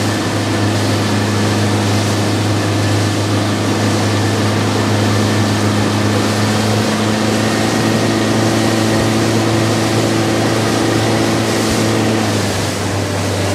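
A small boat's motor running steadily, with a strong low hum and a wash of water and wind noise over it. The engine note shifts slightly about twelve seconds in.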